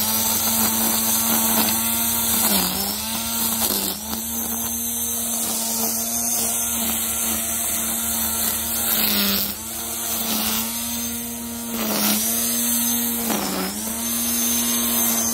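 Wild Badger Power 40V brushed cordless string trimmer running with a steady motor whine while its line cuts grass, the pitch dipping briefly about five times.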